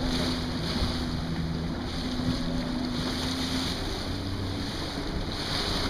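Wind buffeting the microphone over choppy open water, with a low steady hum that drops away about three and a half seconds in.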